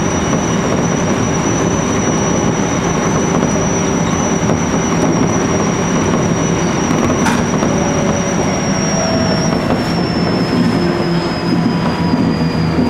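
JR East E127 series electric train running, heard from inside the front car: a steady rumble of wheels on rail with a thin high whine that slowly falls in pitch over the last few seconds.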